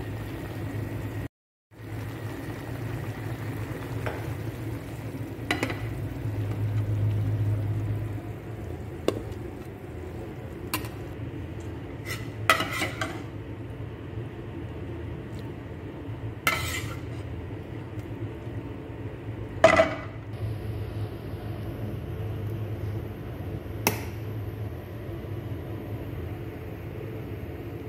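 Pot of milkfish sinigang simmering on a gas stove, a steady low sound, with scattered clinks and knocks of a metal pot and utensils. The loudest knock comes about two-thirds of the way through, and the sound drops out briefly near the start.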